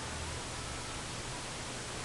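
Steady hiss of recording noise and room tone, with a low hum that fades out about half a second in.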